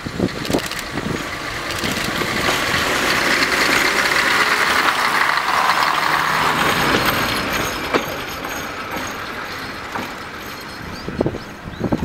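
Nanbu Jukan Railway Kiha 10 railbus's diesel engine running as the railcar pulls away past, the sound swelling to its loudest a few seconds in and then fading as it moves off. A few sharp knocks come near the end.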